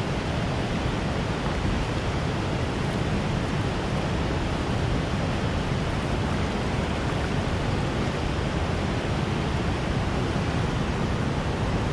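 Steady rush of river water flowing below a dam, an even unbroken sound of moving water with no other events.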